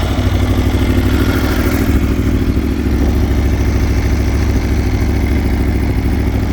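2016 Aprilia Tuono V4 Factory's V4 engine idling steadily just after a cold start, through a full Akrapovič racing exhaust system.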